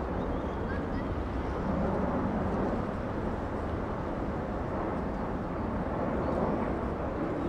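Twin-engine jet airliner flying low overhead, its engines making a steady, deep rumbling noise that swells slightly about two seconds in.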